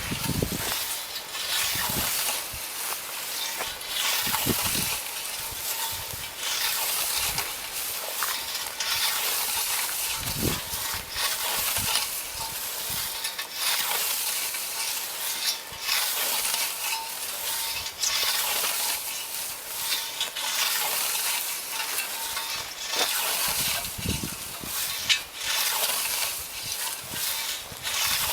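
Scythe cutting through dry, standing wheat: crisp, repeated swishes with the rustle and crackle of stalks being sheared.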